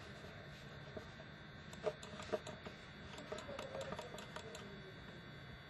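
Light, irregular clicks from a computer mouse, its buttons and scroll wheel, a few a second for about two and a half seconds, over a faint steady room hum.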